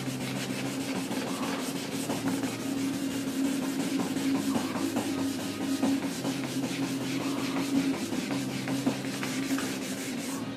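Fine 1200-grit sandpaper rubbing steadily over painted clear coat: color sanding the finish before it is buffed. A steady low hum runs underneath.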